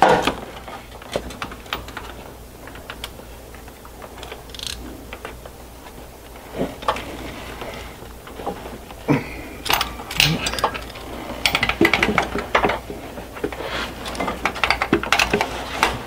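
Ratchet wrench clicking as it tightens a car starter motor's mounting bolts, with scattered clanks of metal tools. The clicking comes in quick runs, thickest in the second half.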